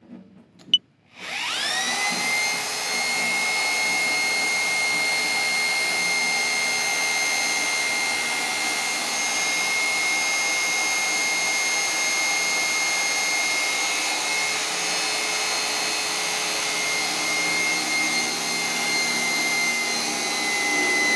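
Electric drill motor spinning up about a second in, then running steadily with a high whine as the core drill's twist-type center drill bores a pilot hole into stainless steel plate.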